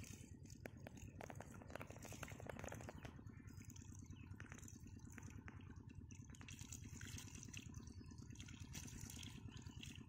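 Faint trickling and dripping of shallow water running over mud in a drained channel, with small irregular clicks and splashes over a steady low hum.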